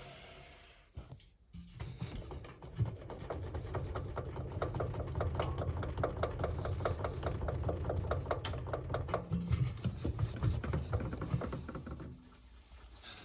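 Washing machine running: a low motor hum with rapid, even ticking as the drum turns. It starts about a second and a half in and stops near the end.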